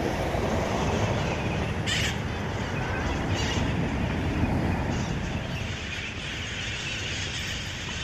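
Street traffic noise under several harsh screeches from a flock of wild red-masked parakeets (cherry-headed conures) flying overhead, the calls coming in short bursts and thickening toward the end.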